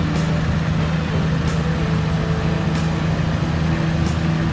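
4x4 engine running at steady revs, with a light click repeating about every second and a quarter.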